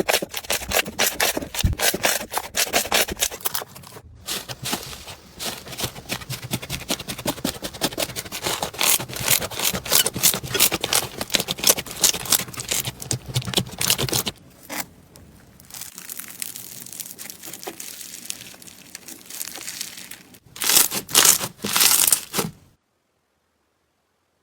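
Slime being squeezed and kneaded by hand, giving a dense run of crackling, popping clicks that grows quieter for a stretch, comes back in a few loud bursts, then stops suddenly near the end.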